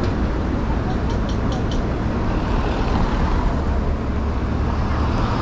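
Steady city street traffic, with vehicles passing close by. About a second in, a quick run of about five short high ticks sounds over it.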